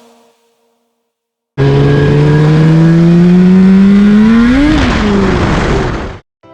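Suzuki RG500 Gamma's two-stroke square-four engine accelerating hard, its pitch climbing steadily for about three seconds, then peaking and falling away before it cuts off suddenly.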